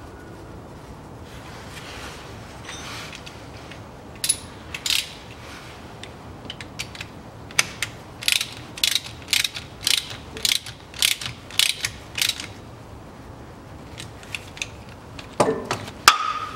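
Ratchet wrench on an extension tightening the oil level plug of a Land Rover Discovery 3 rear differential after refilling: runs of ratcheting clicks, about two strokes a second in the middle. Near the end comes a louder metallic clank with a brief ring.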